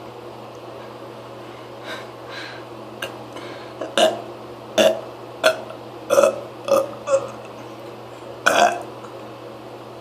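A person forcing out a run of about ten short, loud burps in quick succession, the last one longer, each a deliberate effort to burp as loudly as possible.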